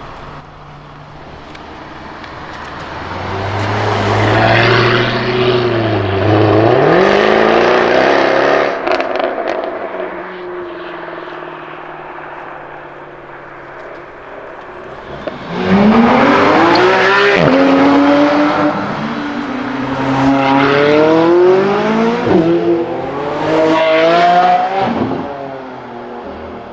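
BMW M3 F80's twin-turbo 3.0-litre straight-six, breathing through an Akrapovic Evolution race exhaust, accelerating hard twice. The first pull rises and falls away with a few sharp crackles. The second starts suddenly about halfway in and climbs through several gears, each upshift marked by a quick drop in pitch, before settling back to a steady drone near the end.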